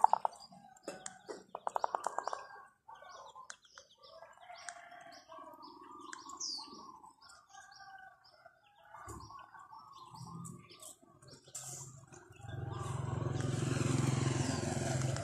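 Small birds chirping: short high notes scattered throughout, with a lower warbling run of notes in the middle. From about twelve seconds in, a steady low rumble rises and becomes the loudest sound.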